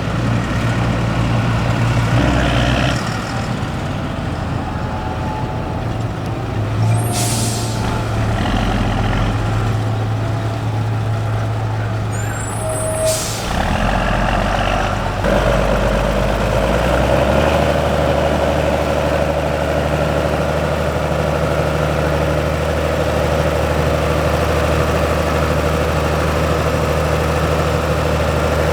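Heavy tractor diesel engines running, with two short sharp air-brake hisses about seven and thirteen seconds in. About fifteen seconds in, the engine note changes and settles into a steady drone.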